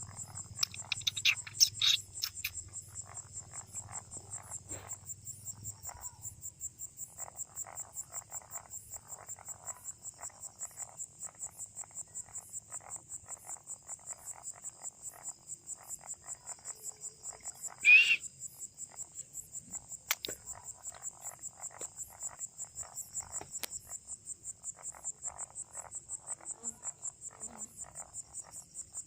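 Crickets trilling steadily in a fast pulsing chirp, with frogs calling in a rhythmic repeated series underneath. A single loud, sharp call stands out about eighteen seconds in, and a few louder calls come near the start.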